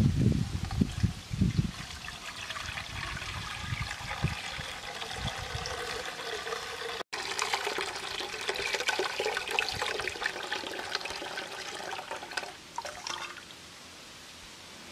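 Milky liquid poured from a metal bowl through a wire mesh strainer into a metal pot, splashing and trickling steadily. The pour stops about a second before the end. A few low thumps come in the first couple of seconds.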